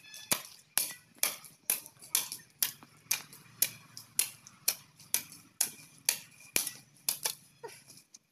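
Blade of a long-handled digging hoe (phawra) chopping into dry, hard soil in quick repeated strokes, about two a second.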